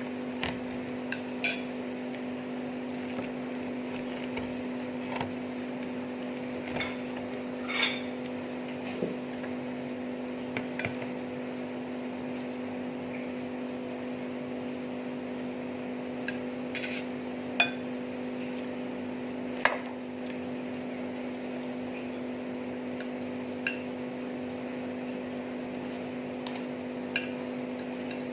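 Cutlery clinking and scraping against a plate at irregular intervals while someone eats, a few clinks louder than the rest, over a steady low electrical hum.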